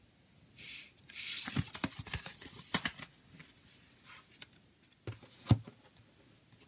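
Cardboard CD digipak being folded shut and slid into its card slipcase: rustling and scraping of card with small clicks. Then two light taps on the table, the second and sharper about five and a half seconds in.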